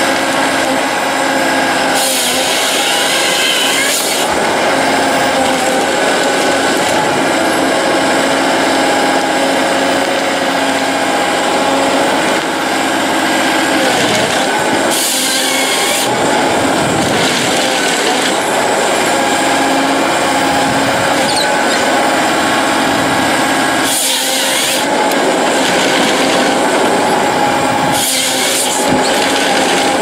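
Forestry harvester working: a steady engine and hydraulic whine, broken several times by short loud rasps as the harvester head's chain saw cuts through the logs.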